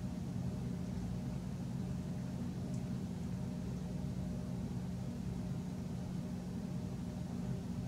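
Steady low machine hum, even throughout, with a couple of very faint ticks about three seconds in.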